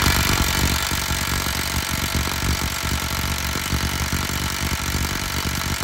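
Hyper Tough 12V 3/8-inch brushless cordless impact wrench hammering steadily under full load, working to break loose a bolt torqued to 250 ft-lb while running on a partly drained battery.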